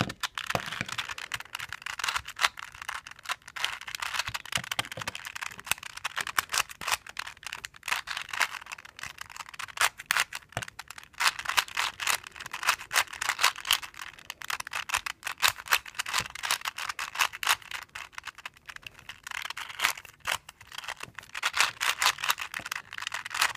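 4x4 Rubik's Revenge being turned by hand, its plastic layers clicking and rattling in rapid, irregular strings of turns as the edge parity algorithm is worked through.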